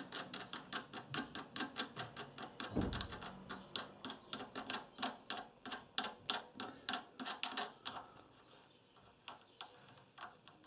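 Wing nut on a Honda GX160's air cleaner being spun off its threaded stud by hand: rapid light clicks, about four a second, that stop about eight seconds in, with a few scattered clicks after.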